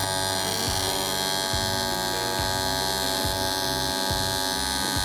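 AC TIG welding arc on oil-soaked cast aluminum, a steady electric buzz as filler wire is fed into the puddle.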